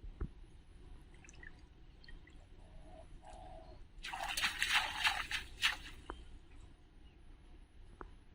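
Water splashing for about two seconds, starting about four seconds in, with scattered small drips and ticks around it.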